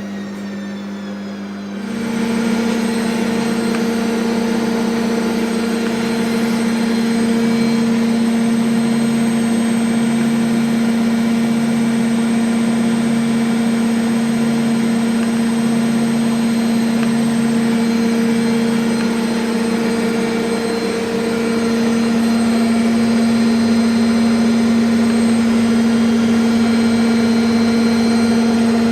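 Gorenje W7513/S1 washing machine's drum spinning at high speed, a steady loud hum with a whine. It steps up in level about two seconds in and again slightly near two-thirds of the way through, as the spin speeds up.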